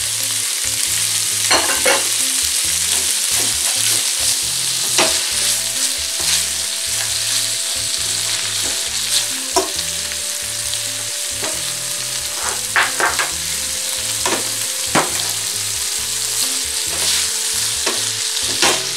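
Poblano chile strips, sliced onion and corn kernels sizzling steadily in oil in a stainless steel skillet, with the scrape and clack of a plastic slotted spatula stirring them every few seconds.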